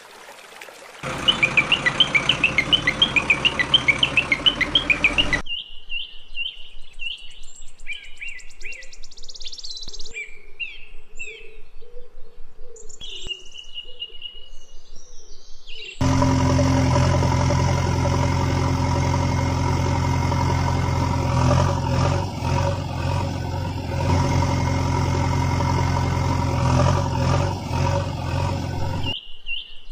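Birds chirping, then a steady engine sound starts suddenly about halfway through and runs as the loudest sound, a vehicle engine laid over a toy JCB backhoe loader. In the first few seconds there is a fast, evenly repeating pulsing sound.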